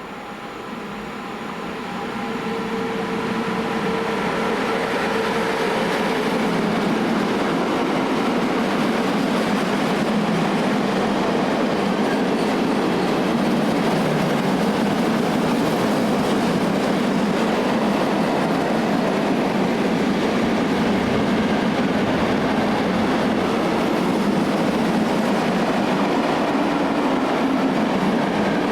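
Freight train passing: the sound swells over the first few seconds, then settles into a long, steady rumble and clatter of wagons rolling along the rails.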